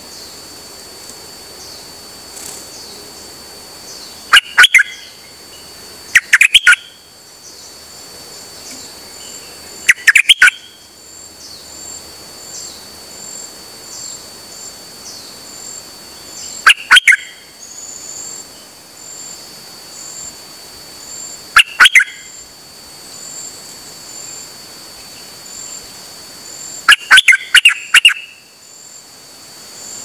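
A caged songbird, the Thai 'nok dok taeng' kept for its song, calls in six loud short bursts of quick bright notes a few seconds apart, the last a longer run. A faint steady high insect trill with evenly repeated chirps runs underneath.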